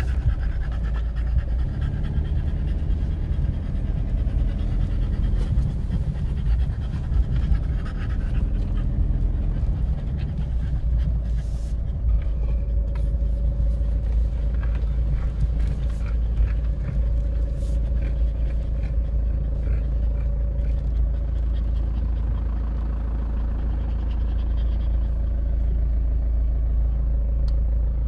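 Car engine and cabin rumble heard from inside the car as it drives slowly over a grass track, a steady low drone with a few light knocks.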